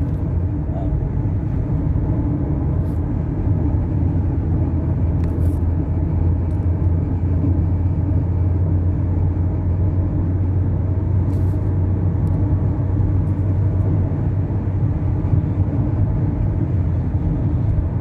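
Mazda CX-5 heard from inside the cabin, accelerating at highway speed: a steady low rumble of engine and road noise.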